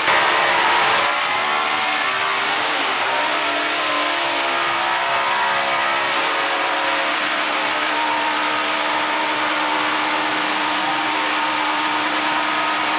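Motorcycle engines running and being revved: a continuous engine sound with several rises and falls in pitch, a little louder in the first second.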